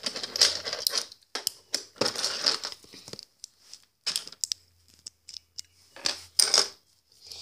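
Hands rummaging through a pile of loose plastic Lego bricks: irregular bursts of rattling and clicking, with short pauses between them.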